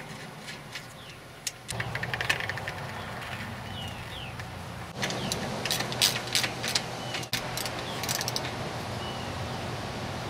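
Metallic clicks and clatter of a wrench on a bicycle's front axle nut as the wheel is fitted back into the fork, in two bursts, over a steady low mechanical hum.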